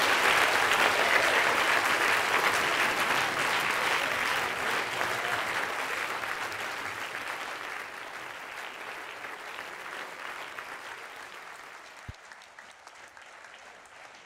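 A large audience applauding: dense, even clapping that gradually fades away.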